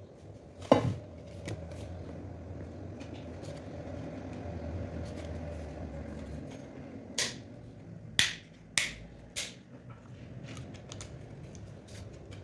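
Kitchen handling noise: a steady low hum with several sharp knocks and clinks, as of utensils or dishes being set down. The loudest knock comes about a second in, and a quick run of four comes near the end.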